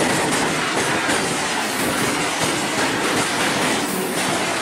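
BTPN bogie tank wagons of a freight train running past at speed: a steady, loud rush of steel wheels on rail, with wheels clacking over the rail joints.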